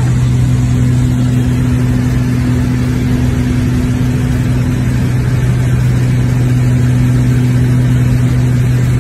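Steady cabin drone of a small aircraft's engines in flight: an even, unbroken hum with a strong low tone and its octave above it, over rushing noise.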